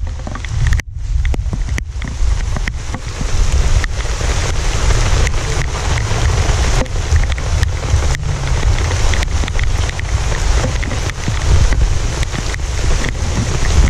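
Wind buffeting the microphone in a heavy, uneven rumble over a steady rush of surf, with scattered light knocks; it drops out briefly about a second in.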